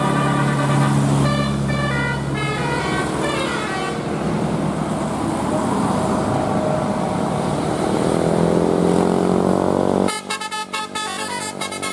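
Bus musical 'telolet' horn playing a quick run of stepped notes over the hum of the bus engine, followed by engine noise with a tone slowly rising in pitch. About ten seconds in the sound changes abruptly to choppy, stuttering horn notes.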